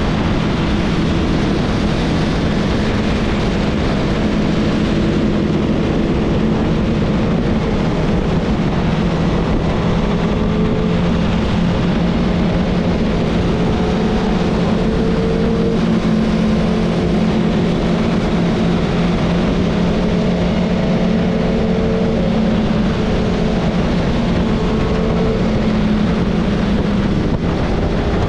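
Motorcycle engine running at steady highway cruising speed, its pitch holding nearly level, under heavy wind rush over the microphone.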